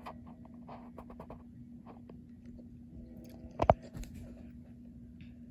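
Handling noise on the recording device: small scratches and clicks, with one sharp knock about three and a half seconds in, over a steady low hum.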